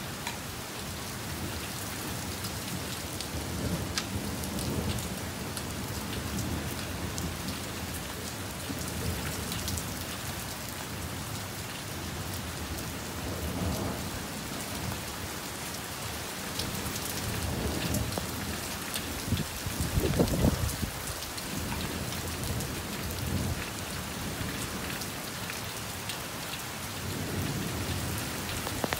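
Heavy rain falls steadily, with drops spattering close by. Low rumbles of thunder swell and fade several times, the loudest about two-thirds of the way through.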